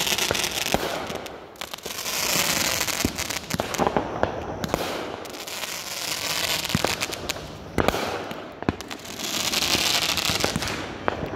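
Consumer fireworks from a ground pallet firing: shells launching and bursting in swells of hissing crackle every few seconds, with sharp bangs scattered throughout.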